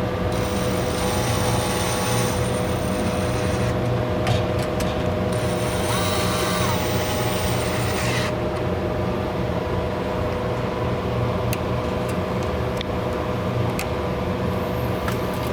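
Mechanical clicks and rattles of hands-on work inside a soda vending machine, over a steady electrical hum. Two bursts of a higher whirring noise, each about three seconds long, come near the start and about five seconds in.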